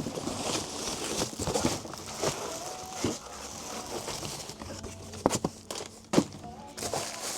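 Packaging rustling and crinkling as a new harmonic damper is lifted out of its box, with scattered light knocks and clicks.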